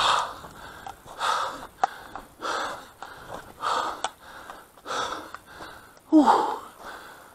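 A man breathing hard while moving over rough hillside ground, one loud breath about every second. The breath about six seconds in is the loudest and is voiced.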